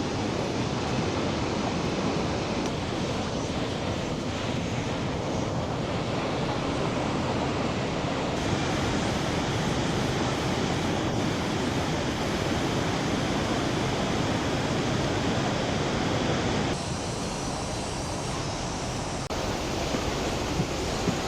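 Steady rushing roar of a large waterfall in flood, heard from across the river, slightly quieter for a couple of seconds near the end.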